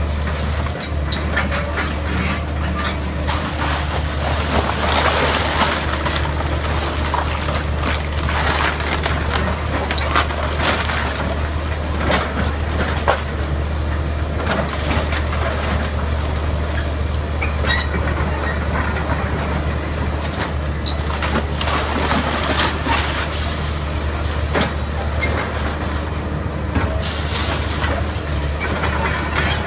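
Link-Belt 160 tracked excavator's diesel engine running steadily under load while its arm tears into a wood-frame house, with irregular cracking, splintering and crashing of timber and debris and a few brief high squeals.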